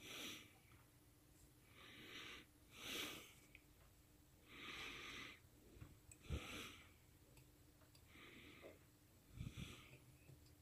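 Faint, heavy breathing close to the microphone, a breath about every two seconds. There is a soft knock from handling the work a little past the middle and another near the end.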